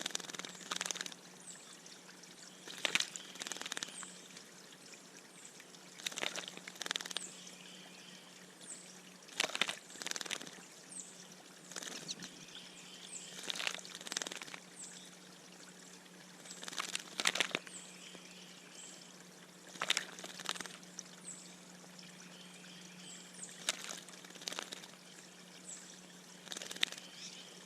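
Water splashing in a bird bath in short bouts every few seconds as a bird bathes, with faint high chirps between the splashes.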